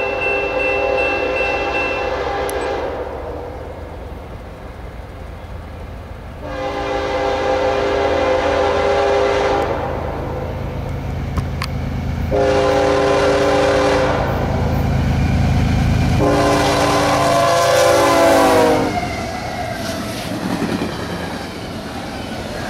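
CSX freight train's diesel locomotive horn sounding four blasts, long, long, short, long, over the rising rumble of the approaching engines. The last blast drops in pitch as the locomotive passes, and then the double-stack container cars rumble and clatter by on the rails.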